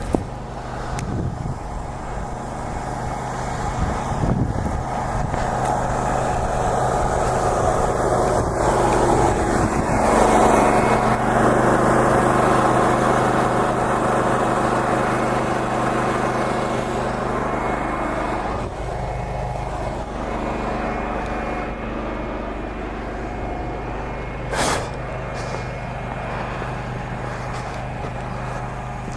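A motor or engine running steadily with a constant hum. It grows louder through the middle and then eases back, with one short sharp noise near the end.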